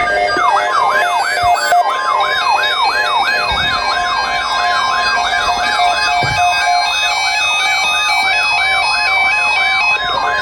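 Electronic siren-style alert tone: a rapid yelp that sweeps down and up about three times a second, over a steady high tone and a run of stepped beeping tones, as used to announce an emergency weather alert.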